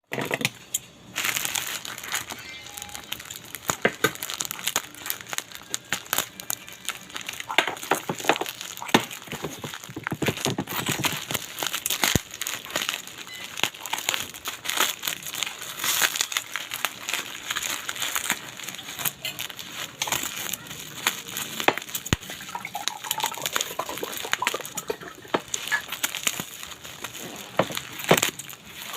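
Plastic parcel packaging crinkling and rustling, with frequent sharp crackles, as the parcel is handled and opened.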